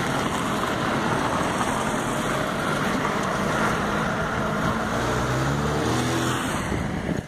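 Road vehicle noise, steady throughout, with an engine's tone rising in pitch for a moment about five seconds in.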